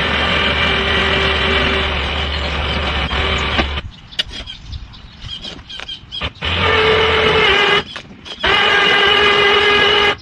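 Craftsman lawn tractor's 17.5 hp Briggs & Stratton engine running steadily. About four seconds in it drops out abruptly to a few seconds of clicks and knocks, then comes back just as abruptly, with another short break near the end.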